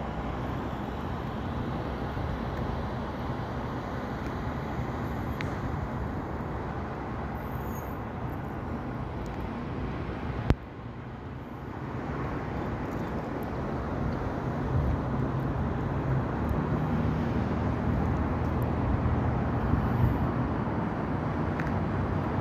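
Steady road traffic noise outdoors, a continuous low rumble. About ten seconds in there is one sharp click, after which the noise drops briefly, then grows louder and deeper toward the end.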